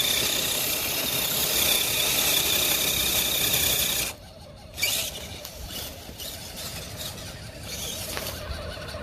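Redcat Gen7 RC crawler's electric motor and gears whining steadily at a high pitch as its wheels spin in snow. The whine cuts off abruptly about four seconds in, leaving quieter scattered clicks and scuffs.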